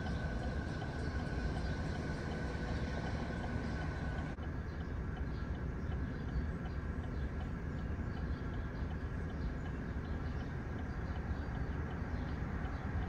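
Wind rumbling on the microphone outdoors, a steady low noise that flickers quickly in loudness. It changes abruptly about four seconds in, where one recording is cut to another.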